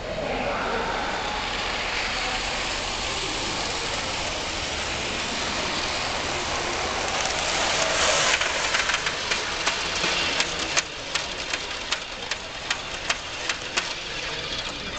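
Gauge One model train rolling past close by: a steady rushing noise of wheels on track. From about eight seconds in it gets louder, with a run of sharp, irregular clicks as the Talgo cars go by.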